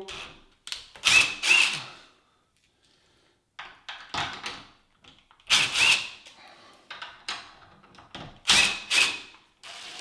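Cordless drill backing screws out of a steel door hinge in four short bursts, with pauses between.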